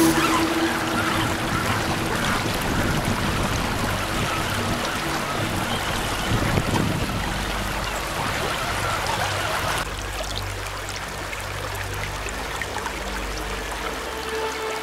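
Shallow river current rushing and splashing around a scale RC crawler wading through it. The sound changes abruptly about ten seconds in.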